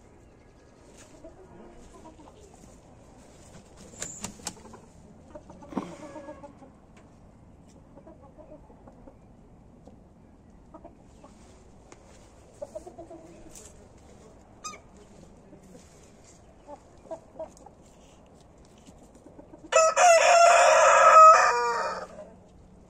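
Cochin chickens clucking quietly and sporadically, then near the end a rooster crows once, loud, for about two and a half seconds.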